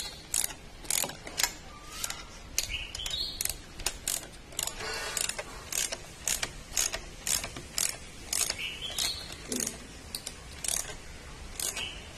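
Hand ratchet wrench clicking in short strokes, a sharp click about once or twice a second, as the nuts holding a motorcycle top-box base plate are tightened.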